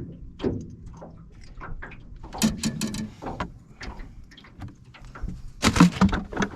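Irregular clicks and knocks, with a louder clatter near the end.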